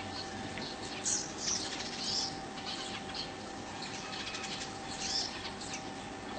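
Small bird giving short, high-pitched chirps, a few scattered calls about a second apart near the start and one more near the end, over a steady outdoor hiss and a faint steady hum.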